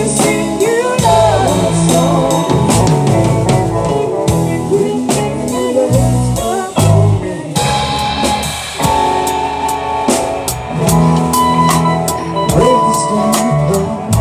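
Live band playing a song with drum kit and electric guitar, the lead lines bending in pitch; no sung words.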